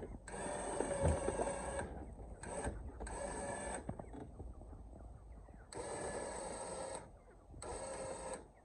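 Warn electric winch on a trailer-mounted crane, winding in a rope under load to drag a chicken coop across the grass. It runs in five separate spurts of about a second each, stopping and starting.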